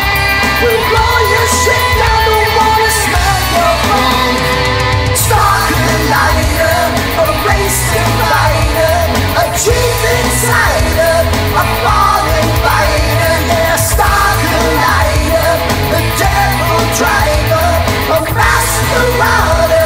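Studio recording of a hard rock song playing loud and steady, with the full band going.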